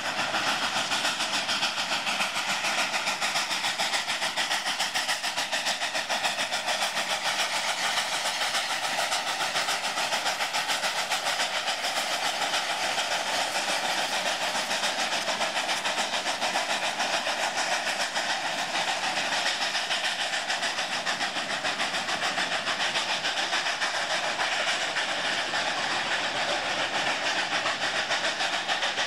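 Two narrow-gauge Mikado steam locomotives, a K-37 leading a K-36, working hard upgrade as the train passes: a steady mix of exhaust and steam hiss with the running of the train on the rails.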